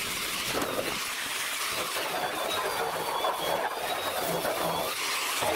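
Angle grinder running against a sheet-metal car body panel, stripping off the transport primer: a steady grinding hiss with a faint, high, wavering motor whine that starts abruptly.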